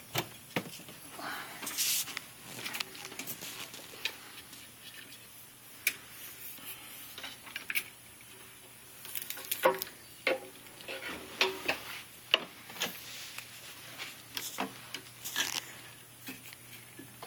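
Scattered knocks, clunks and scrapes as a late-1940s Singer sewing machine cabinet is closed up, the busiest run of knocks coming a little over halfway through.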